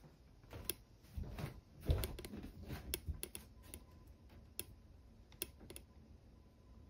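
Scattered light, irregular clicks and taps, with a few soft thumps in the first three seconds.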